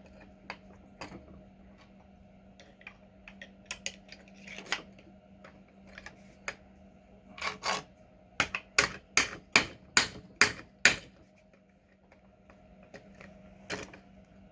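Screwdriver tapping the front axle out through a Joyor LR8 scooter's wheel hub, metal on metal: scattered light clicks, then a quick run of about seven sharp taps, two or three a second, in the middle.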